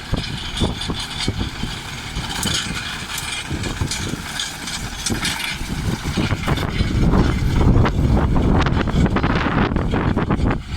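New Holland T5.115 tractor's diesel engine running as it pulls a spider-wheel rake windrowing grass, with frequent clicks and rattles. The engine gets louder about six seconds in.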